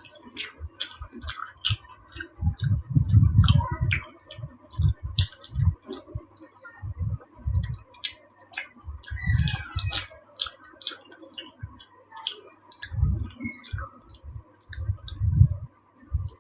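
Close-miked eating sounds: many sharp, wet mouth clicks and irregular low thuds from chewing soft taro curry and rice. A faint steady tone hums underneath.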